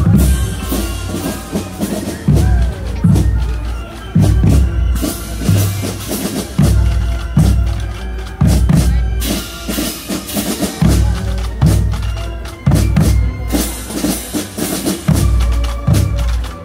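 Loud music with a steady drum beat over heavy bass and pitched instruments.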